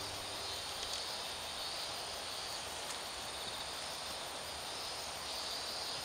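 Insects chirping: a steady high trill over a lower band of chirping that swells and fades every second or so.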